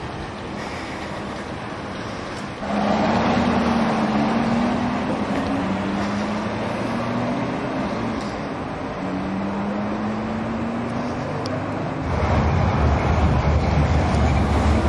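Aston Martin V8 Vantage's V8 engine accelerating away hard, about three seconds in, its pitch climbing in two pulls with a gear change between. Near the end a steady low rumble takes over.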